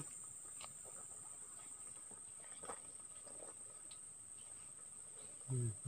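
Faint, steady high-pitched chirring of crickets, with a few soft ticks.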